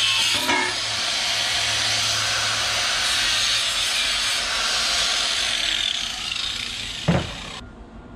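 Angle grinder with a cutoff wheel cutting the casting ridge of a CD009 transmission's aluminium bellhousing, a steady grinding with a high whine. About seven seconds in, the grinder is switched off and winds down, with a single thump.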